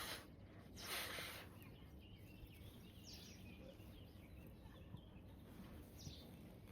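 Near silence: faint outdoor ambience, with a short breathy rush of noise about a second in.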